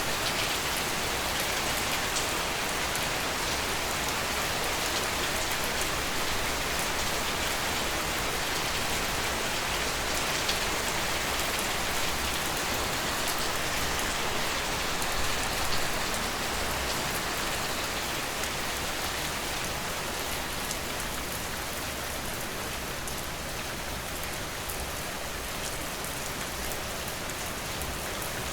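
Steady rain falling, an even hiss of drops on surfaces, easing off slightly in the second half.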